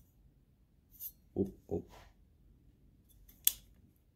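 Mechanical clicks from an AR-15's fire controls worked by hand during a safety check of a drop-in trigger: a light click about a second in, two dull knocks, then one sharp metallic click about three and a half seconds in, the loudest.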